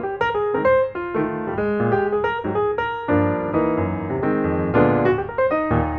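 Background piano music, a quick, even run of notes.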